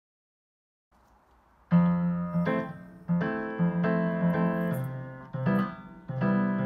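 Background piano music, a gentle melody of single struck notes that starts about a second and a half in after a moment of silence.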